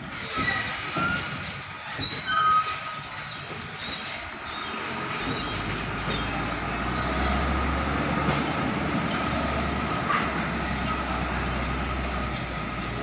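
Container truck with its loaded trailer moving slowly: high metallic squeals in the first three seconds, then a low diesel engine rumble that comes up about five seconds in and fades near the end.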